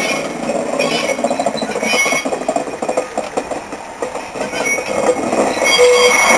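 Leyland National railbus RB004 rolling slowly past with its diesel engine running, with a few metallic clinks in the first two seconds. Near the end its wheels start a high, steady squeal.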